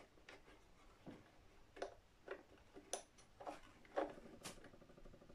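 Faint small clicks and ticks, irregularly spaced about half a second apart, with no steady rhythm.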